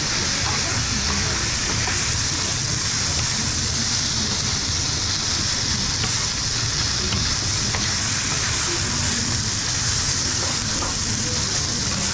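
Rice and vegetables sizzling steadily on a hot steel flat-top griddle, with a metal spatula scraping and clicking on the plate as the fried rice is stirred. A steady low hum runs underneath.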